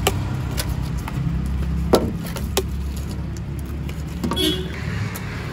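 Steady low rumble of street traffic, with a few sharp clinks and knocks scattered through and a short ringing note about four seconds in.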